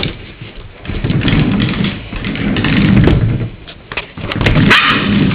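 A small dog scuffling and scraping against a surface: loud rustling noise in several long stretches with scattered clicks.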